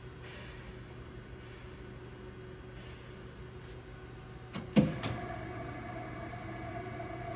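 Sunnen honing machine under power: a steady hum, then a sharp clunk about five seconds in, after which a higher steady tone joins the hum as something on the machine starts running.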